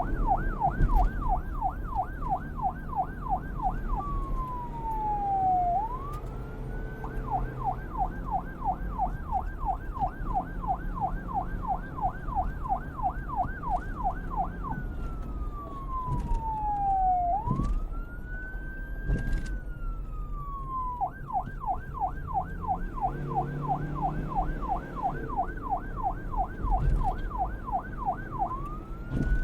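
Electronic police car siren switching between a fast yelp and a slow wail. The rapid up-and-down sweeps, about five a second, give way three times to long falling and rising glides. A low rumble runs underneath.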